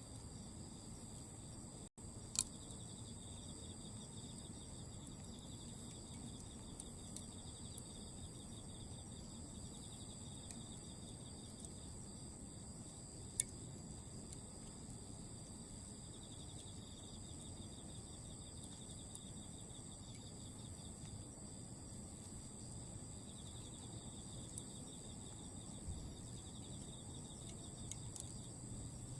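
Autumn insects chirping steadily at several high pitches, over faintly crackling Iwate cut charcoal burning down to embers. Two sharp pops stand out, one about two seconds in and one about thirteen seconds in.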